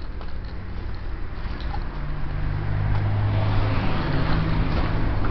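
A motor vehicle's engine running nearby: a low steady hum that grows louder from about two seconds in.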